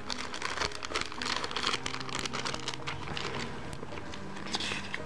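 Clear plastic packaging bag crinkling and crackling as it is handled, followed near the end by the rustle of a folded paper instruction leaflet being picked up.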